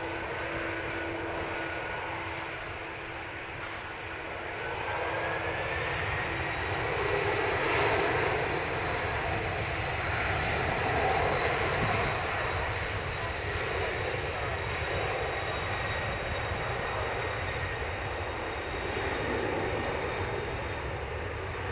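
Twin-engine jet airliner (Boeing 787) on its takeoff roll, its engines running at high thrust. A steady roar builds from about five seconds in and is loudest over the next several seconds. A whine climbs in pitch and then holds steady as the engines spool up.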